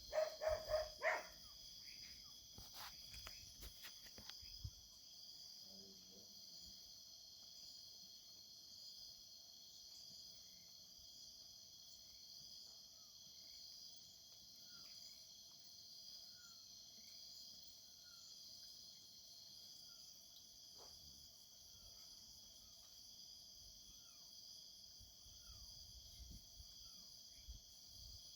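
Faint night-time countryside insect chorus: crickets chirping in a steady high shimmer. A few soft knocks come in the first seconds, and later a short high call repeats about once a second over a low steady tone.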